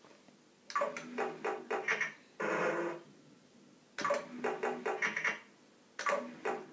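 Big Breakfast fruit machine's electronic sound effects as its reels are spun: a quick run of beeping tones with each spin, three times, the first run ending in a longer buzzing tone.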